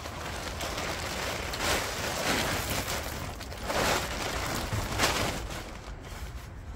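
Blue polyethylene tarp being pulled off a machine and bunched up, crinkling and rustling, with a few louder crackles as it is gathered.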